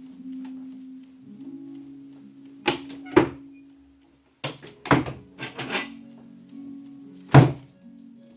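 Sharp cracks and thuds from a chiropractic adjustment over background music: two close together, then a cluster of three, then the loudest one near the end.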